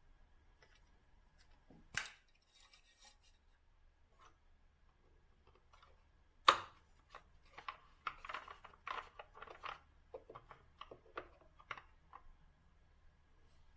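Clicks and knocks from hands working with tools or parts: a sharp click about two seconds in, a louder knock about six and a half seconds in, then a run of irregular small clicks and clatter.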